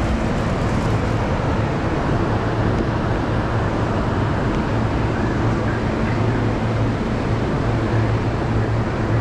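Railway station ambience: a steady, even wash of noise with a constant low hum underneath and no distinct events.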